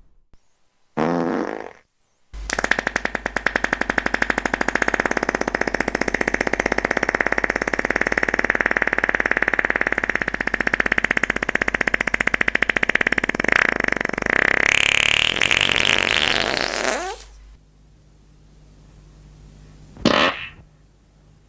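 Fart sounds: a short one about a second in, then one long, rapidly fluttering fart lasting about fifteen seconds that rises in pitch before it stops, and a brief one near the end.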